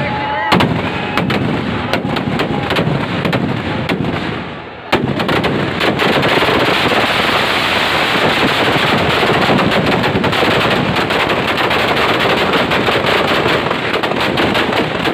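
Firecrackers packed inside a burning Ravan effigy going off in rapid strings, a dense crackle of sharp bangs. About five seconds in, after a brief lull, a bigger burst starts, and the crackling turns denser and continuous.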